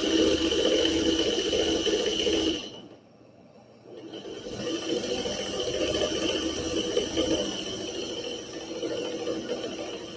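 Vintage Singer 301 sewing machine running steadily as it stitches a fabric strip. It stops for about a second and a half, roughly three seconds in, then runs again, quieter near the end.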